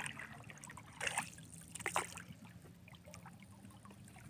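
Water lapping and splashing faintly around a small boat, with soft splashes about one and two seconds in, over a faint steady low hum.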